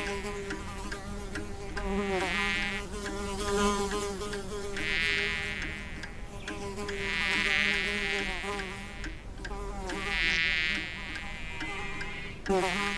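Cartoon insect wing buzzing: a steady low drone under a higher buzz that swells and fades about every two to three seconds, like an insect making repeated flying passes.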